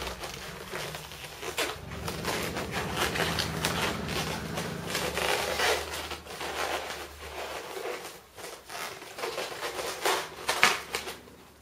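Latex modelling balloons rubbing and squeaking against each other as they are twisted and wrapped by hand, in short scratchy strokes, with one sharper stroke near the end.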